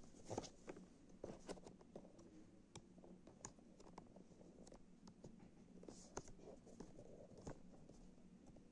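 Faint handling of a cardboard headphone box: fingers gripping, tapping and sliding on the box, making scattered light knocks and scrapes, the loudest just after the start. A faint low steady hum runs underneath.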